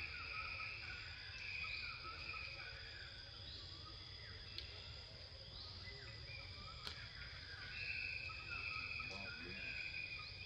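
Insect chorus: a steady high-pitched buzz with a second, lower layer that swells and fades every few seconds, and short rising calls repeating over it. A low rumble runs underneath.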